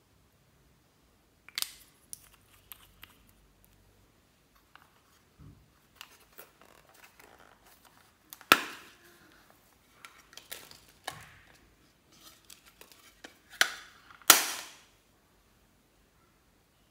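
Plastic makeup compacts being handled and snapped open: sharp plastic clicks and snaps, the loudest about halfway through and near the end, among lighter taps and clicks.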